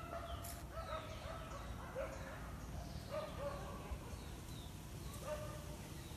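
Short bird calls repeating irregularly, about once or twice a second, over a low steady rumble.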